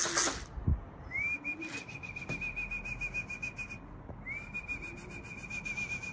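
Two long trilled whistles, each sliding up and then held with an even flutter, a pigeon fancier's whistle calling racing pigeons down to the loft. A brief rustle and a low thump come in the first second.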